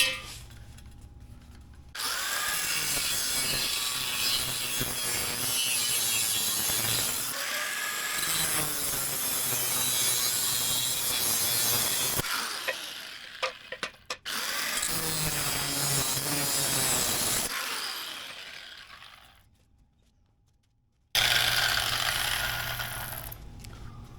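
A metal roof-rack piece being cut by hand: long stretches of continuous cutting and sawing noise that start and stop abruptly, with a brief dead silence about twenty seconds in.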